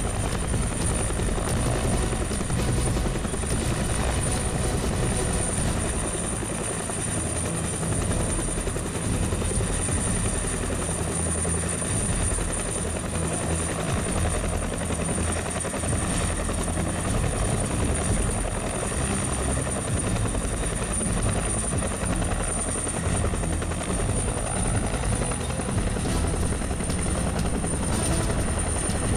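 Huey-type military helicopter hovering with a slung load, its rotor beating and turbine running steadily, with a thin steady high whine over it.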